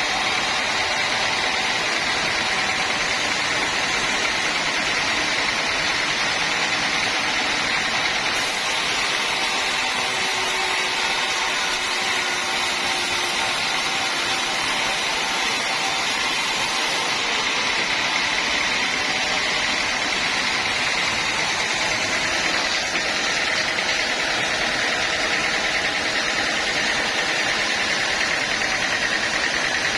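Sawmill machinery running steadily, an even mechanical noise with a faint high steady tone.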